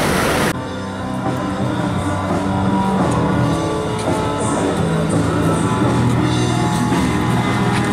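A rush of noise stops about half a second in, and rock music with guitar and drums takes over.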